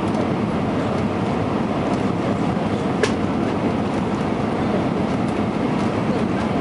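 Steady rumble of cabin noise inside an Airbus A320 airliner, from the engines and the air rushing past the fuselage, with a single sharp click about three seconds in.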